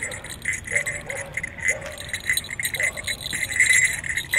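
Small metal jingle bells on a costume hood jingling irregularly as the wearer moves, louder near the end.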